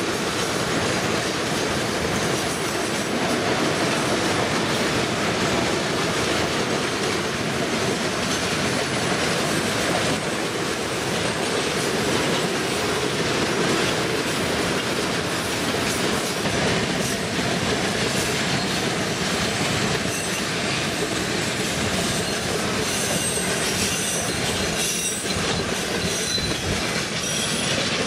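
Freight train's tank cars and boxcars rolling past close by: a steady rumble and clatter of steel wheels on the rails, with brief high wheel squeals in the later part.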